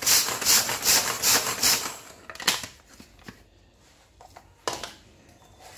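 Hand-pull chopper crushing roasted muskmelon seeds: a quick run of rattling whirs, about three or four a second, for roughly two seconds, then a few separate clicks. The seeds are being broken to a coarse grind.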